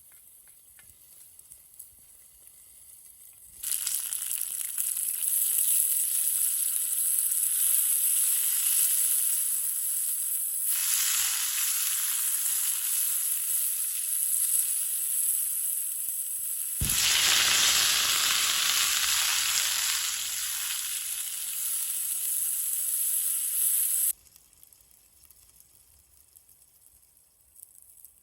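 Food frying and sizzling in a hot saj pan: a loud, steady hiss that starts suddenly about four seconds in, gets louder in two sudden steps, and cuts off sharply near the end.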